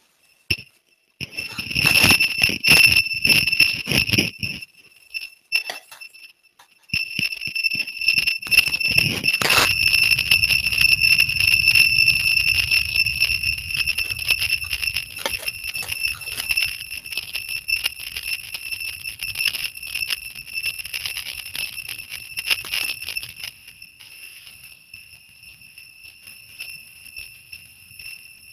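Faulty live-stream audio: a steady high-pitched ringing tone mixed with harsh crackle, heard while the stream's sound problem is being tested. It cuts in after about a second, breaks up for a couple of seconds around five to seven seconds in, and turns much fainter near the end.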